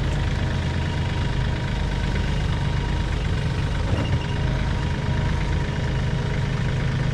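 An LS compact tractor's diesel engine runs steadily at a low idle while the tractor moves slowly.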